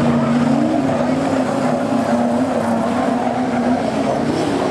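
Engines of several speedway saloon race cars running together as a pack, a steady loud drone whose pitch wavers slightly.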